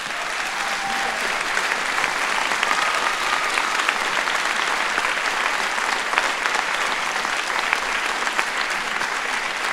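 Large audience applauding, picking up at the start and then holding steady.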